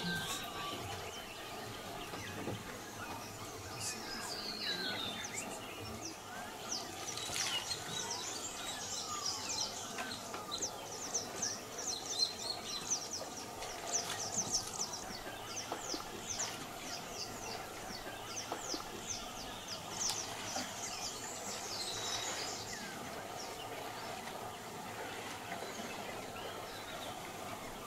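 Rainforest ambience of birds calling and insects. A long run of rapid high chirps carries through the middle, with scattered whistled calls around it.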